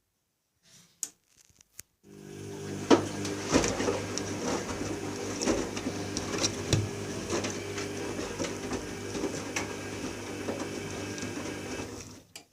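AEG washing machine running: a steady motor hum with scattered clicks and knocks, starting about two seconds in and cutting off suddenly near the end.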